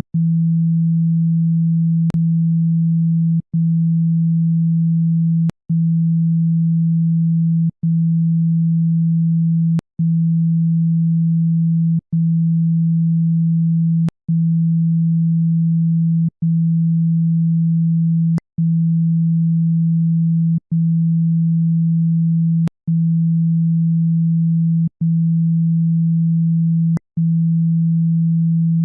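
Steady, loud low-pitched test tone played to shake dust and water out of a phone speaker. It cuts out for an instant with a click roughly every two seconds.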